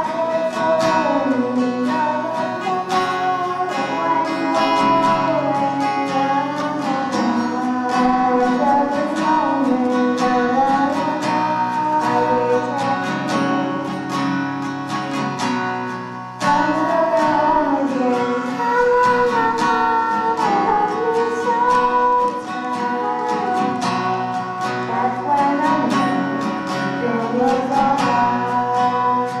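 Singing accompanied by strummed acoustic guitar.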